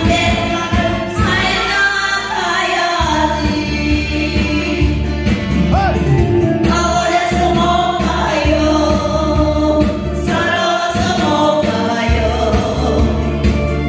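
A woman singing a Korean song into a handheld microphone over an amplified backing track with a steady beat, while a group of listeners claps along and joins in the singing.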